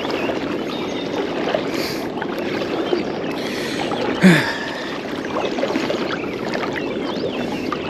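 Steady rushing of river current flowing around the legs of someone wading knee-deep, with one brief louder sound about four seconds in.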